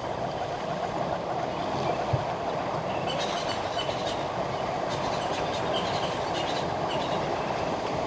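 Water churning and splashing as a herd of African elephants wades through a waterhole: a steady rushing noise, with sharper splashes and crackles in the middle.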